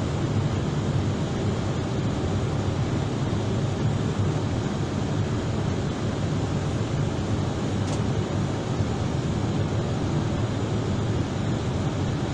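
Steady whooshing hum of cabin ventilation inside a parked Airbus airliner at the gate, with a low drone underneath and no change in pitch.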